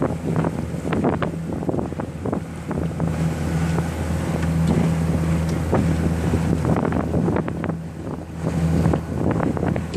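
A MacGregor 26X sailboat's outboard motor running steadily under way, mixed with wind buffeting the microphone and water rushing past the hull.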